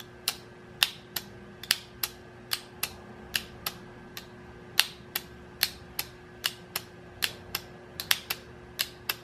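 Lawn mower starter solenoid clicking repeatedly, about two to three sharp clicks a second, as a 12-volt battery charger lead is tapped on and off its terminal. Each click is the plunger pulling in, showing the coil works, though a click alone does not prove the contacts inside are connecting.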